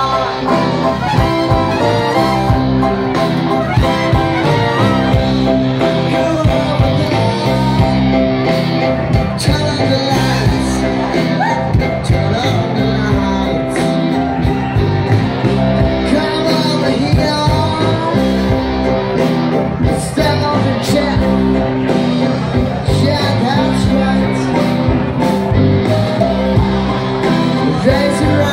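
Live band playing loud, amplified party music with a singer, electric guitar and a steady beat, heard across a large tent.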